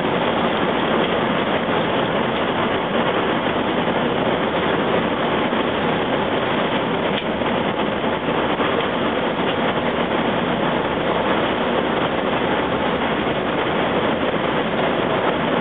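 A long-distance coach travelling on the road: a steady, unbroken rush of tyre, wind and engine noise.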